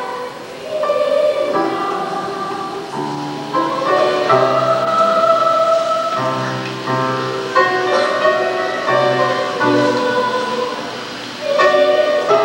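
A children's choir of stage-musical cast members singing a song together over instrumental accompaniment, in held notes that move from chord to chord.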